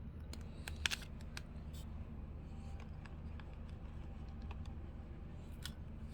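Scattered light clicks and taps from handling small pin boxes and packaging, a cluster in the first two seconds and one more near the end, over a low steady hum.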